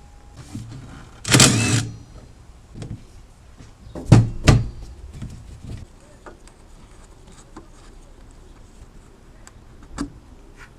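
Metal hand tools at work on an engine: a short rasping burst about a second and a half in, then scattered clinks and knocks, the loudest a pair about four seconds in and another near the end.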